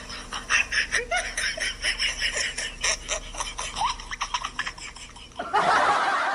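A person laughing in quick, rapid giggling bursts. About five and a half seconds in, a loud burst of hissing noise takes over and then cuts off suddenly.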